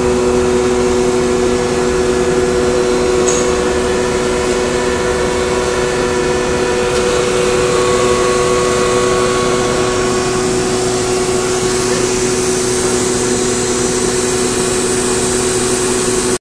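Steady hum of a powered-up 1987 Mazak M5 CNC lathe standing idle: constant machine noise with a low pitched electrical hum running through it.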